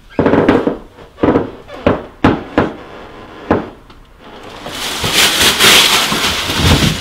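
About seven loud, irregularly spaced bangs on a wooden door in the first few seconds. Then a loud hissing rush of noise swells up and holds.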